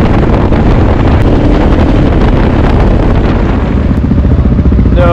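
Dirt-bike engine running under way, with wind buffeting the microphone.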